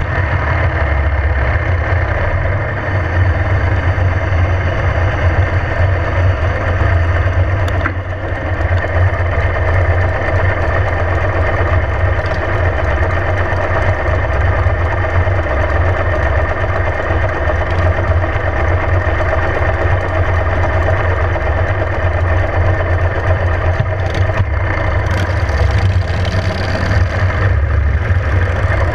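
Cruiser motorcycle engines running, mostly at idle, heard through a camera mounted on one of the bikes, with a steady low rumble.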